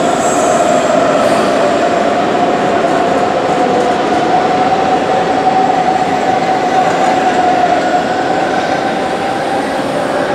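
Hamburg S-Bahn class 474 electric multiple unit rolling slowly into a station and braking almost to a stop. Its traction motors and inverters give a steady electric whine over the rumble of the wheels on the rails. The whine fades near the end.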